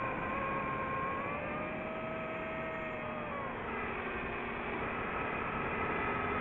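DJI FPV drone's motors and propellers whining over a rushing noise during a fast dive. The whine's pitch rises a little, then drops about three and a half seconds in.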